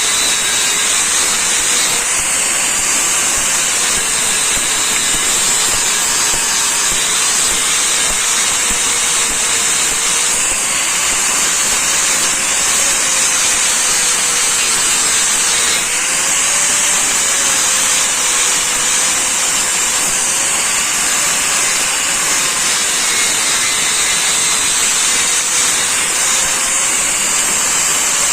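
Electric grinder grinding a steel blade: a steady, loud hiss of abrasive on metal over the motor's hum, whose pitch wavers slightly as the pressure on the blade changes.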